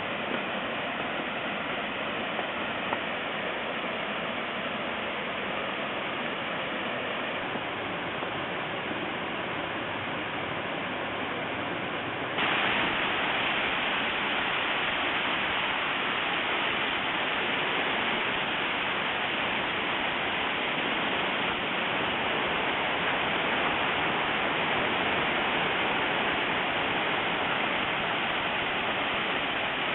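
Waterfall: a steady rush of falling water, which jumps abruptly louder about twelve seconds in and stays at that level.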